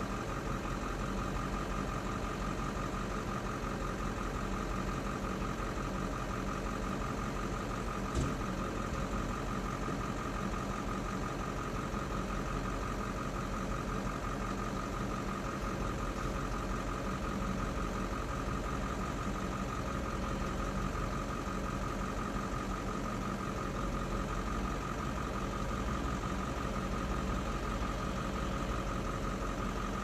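Vehicle engine idling steadily, heard from inside a vehicle's cab, with a single sharp click about eight seconds in.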